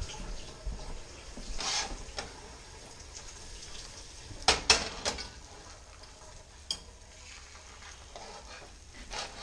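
Trout fillets frying in butter and olive oil in a stainless steel pan, a steady sizzle. About halfway through, a few sharp clinks of a metal fork against the pan.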